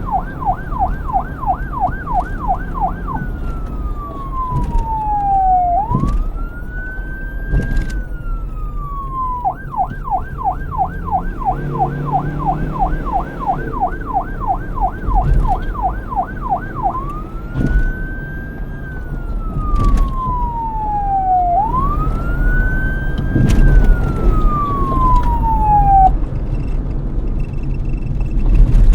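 Police car siren switching between a fast yelp, warbling up and down about three to four times a second, and a slow wail that rises and falls, over a low traffic rumble. The siren stops about two seconds before the end, and a few sharp knocks come through, the loudest near the end.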